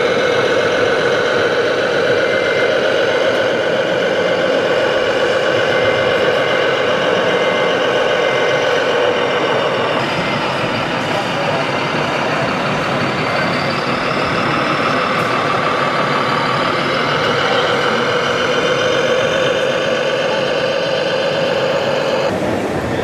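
A 1/14-scale RC Mercedes-Benz tipper truck's sound module plays a diesel truck engine running at low revs, steady with slight rises and falls in pitch. A faint series of short beeps comes a few seconds in.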